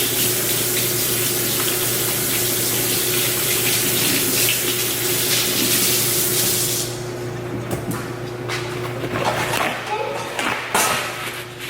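Water running from a sink tap while hands are washed, shutting off about seven seconds in, followed by a few light knocks and rustles.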